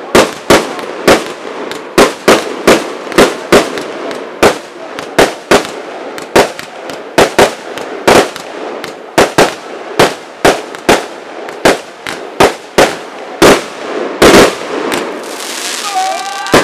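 Fireworks going off in rapid, irregular succession, about two sharp bangs a second as shells launch and burst, with one bigger bang near the end followed by a building hiss.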